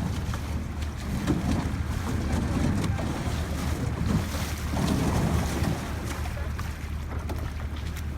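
A motor running steadily with a low drone, with wind buffeting the microphone over it.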